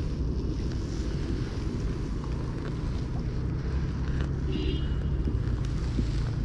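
Steady low rumble of wind buffeting the microphone, with light splashing from a hooked catfish thrashing at the water's surface.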